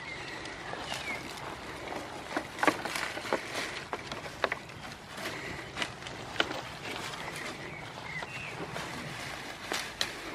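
Goats browsing cut leafy branches: irregular sharp snaps, clicks and rustles as leaves and twigs are torn off and chewed, with knocks on the wooden pallets they stand on.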